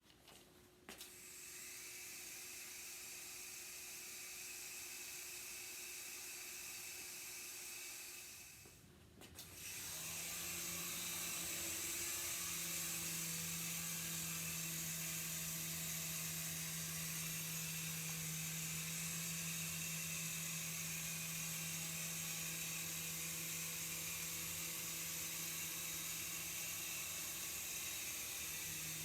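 Remote-control helicopter's small electric motor and rotor running with a steady high whir. It dips briefly about nine seconds in, then comes back louder with a steady low hum from the spinning rotor.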